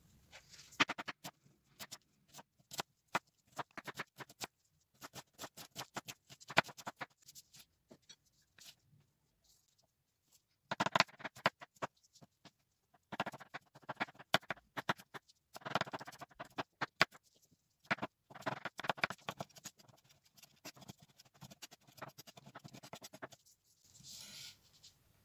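Chef's knife cutting on a bamboo cutting board: runs of quick, crisp taps as red onion and then garlic cloves are sliced and minced, with short pauses between runs. A brief scraping sound comes near the end.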